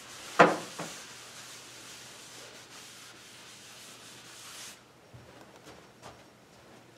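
Felt eraser rubbing across a chalk blackboard, a steady scrubbing hiss that stops a little under five seconds in. A sharp knock just under half a second in, with a lighter one shortly after.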